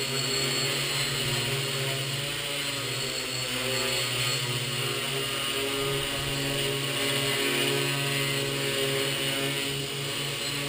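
Quadcopter's electric motors and propellers buzzing steadily as it hovers, the pitch wavering slightly as the motors make small corrections.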